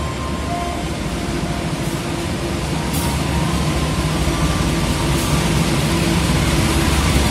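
Diesel locomotive approaching slowly with its engine running: a steady low rumble that grows gradually louder as it comes nearer.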